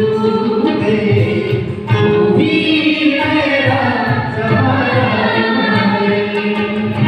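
A worship group of men and women singing a Punjabi Christian song together into microphones.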